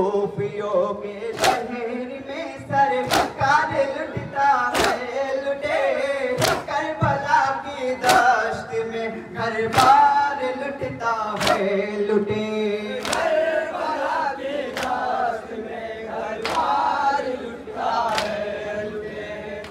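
Men reciting a noha, a Muharram lament, as a sung chant: a lead voice through a microphone with others joining in chorus. Over it runs a steady matam beat of open-handed chest strikes in unison, a little more than one a second.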